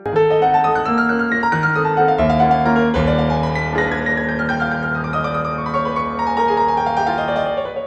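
Background piano music: quick runs of notes over held low notes, stepping downward near the end.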